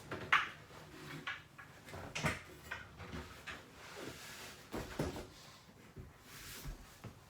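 RV dinette cushions being handled: scattered soft knocks, scrapes and rustles at irregular moments, with a sharper knock a moment in.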